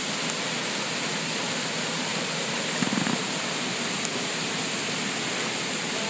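Steady rush of water from a jungle stream pouring over a small rocky cascade. A short low sound breaks through briefly about halfway through.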